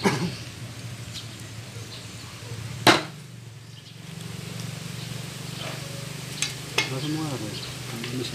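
Cookware clanking: a few sharp knocks against a cooking pan, the loudest about three seconds in, over a steady low hum.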